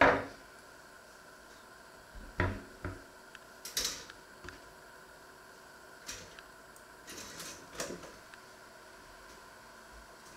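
Kitchen handling noises: a sharp knock right at the start, then a few softer knocks, clatters and brief scrapes as bread slices are put into a pop-up toaster.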